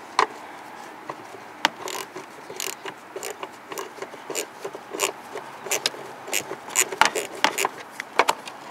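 Ratchet socket wrench clicking in short, irregular strokes, a series of sharp clicks, some in quick clusters, while fasteners are worked loose to swap a headlight dimmer switch.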